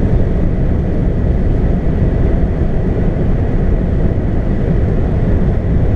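Steady low rumble of a car on the move, road and engine noise, holding at an even level.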